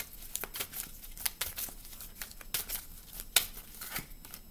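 A deck of tarot cards being shuffled by hand: a run of irregular soft clicks and rustling card slides, the sharpest snap about three and a half seconds in.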